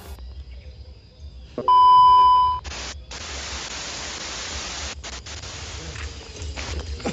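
A single steady electronic beep just under a second long, then television static hiss that turns fainter after about two seconds.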